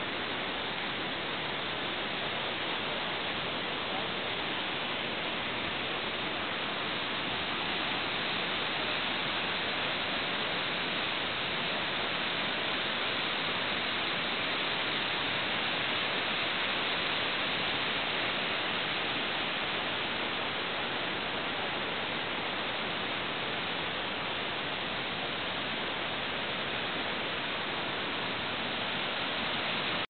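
Waterfall: a steady rush of water pouring over rocks into a pool, slightly louder in the middle.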